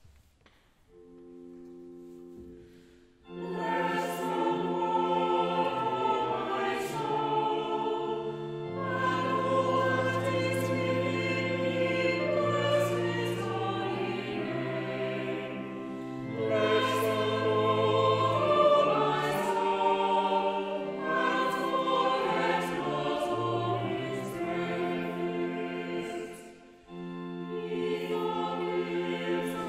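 Small mixed church choir singing with pipe organ. A soft organ chord sounds about a second in, then choir and organ come in together at about three seconds, in long held chords. There is a brief break near the end before the singing goes on.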